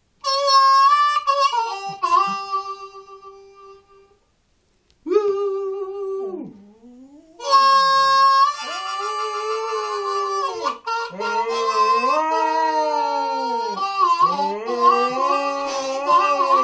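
Harmonica playing improvised blues phrases, with a short pause a few seconds in. In the second half a dog howls along with the harmonica in long howls that rise and fall in pitch.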